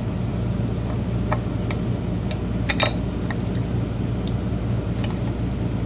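Scattered small clicks and ticks as electrolytic capacitors' wire leads are pushed into a circuit board and handled, over a steady low hum.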